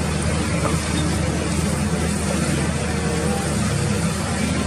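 Concrete mixer truck's engine running steadily while it unloads concrete, a constant low hum under a dense wash of noise.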